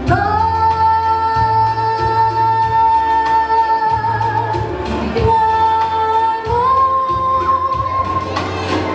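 Woman singing through a microphone and PA system over backing music. She holds one long high note for about five seconds, then moves to a second held note a little higher that she sustains almost to the end.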